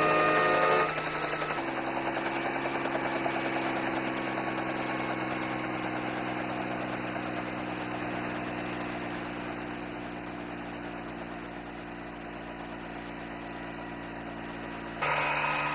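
An engine running steadily, a low even drone that fades a little midway and comes back up near the end.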